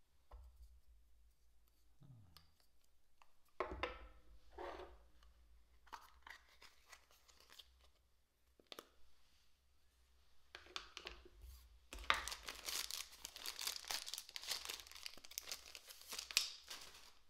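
Clear plastic packaging crinkling and tearing as a paintbrush is pulled from its cellophane sleeve, a dense crackle over the last five seconds or so. Before that, scattered clicks and knocks of small plastic pots and cases being handled and opened.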